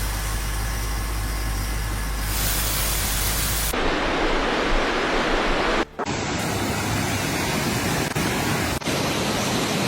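Rushing floodwater making a steady, loud noise. It runs through several short clips cut together, with a brief dropout about six seconds in.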